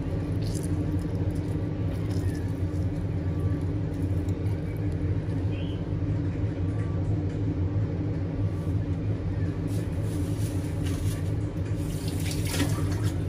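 A steady low mechanical hum, with a few light clicks and rustles of handling near the end.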